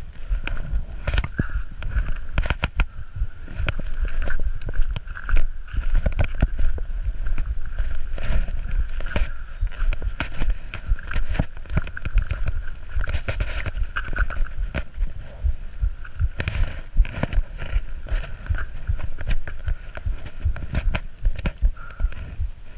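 Mountain bike riding down a gravel trail, heard from a camera mounted on the bike: a constant low rumble with frequent sharp knocks and rattles as the wheels hit bumps, over a steady high buzz.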